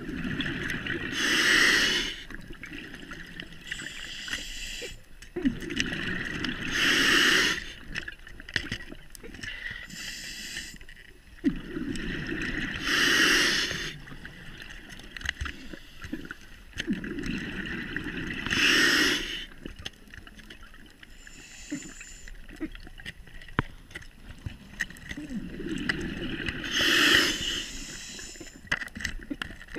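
A scuba diver breathing through a regulator underwater: bubbling exhalations and a hiss with each breath, about five breaths, one every six seconds or so.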